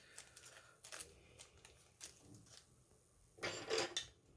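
Faint handling of small model-kit parts: a few light clicks of tiny screws and a small plastic parts bag. A louder short rustling noise comes about three and a half seconds in, as the parts are set down and a tool is reached for.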